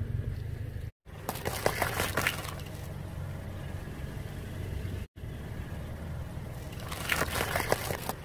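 A car tyre rolling slowly over and crushing eggs, with eggshells crackling and crunching, over the low steady rumble of the car. The sound comes in three short takes with brief cuts between them, with the crunching loudest shortly after the first cut and again near the end.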